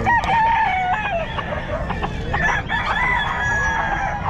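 Gamefowl roosters crowing: two long crows, the first in the opening second or so and the second from about two and a half seconds in.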